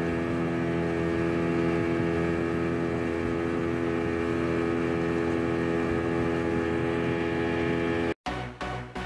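Outboard motor of a 40-horsepower speedboat running steadily at speed, its engine note holding at one pitch. About eight seconds in it cuts off abruptly and electronic dance music with a steady beat starts.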